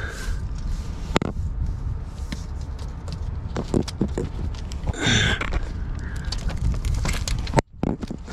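Handling noise from hands working with an LED light bar and adhesive foam strip: scattered clicks and knocks, one sharp click about a second in, over a steady low rumble.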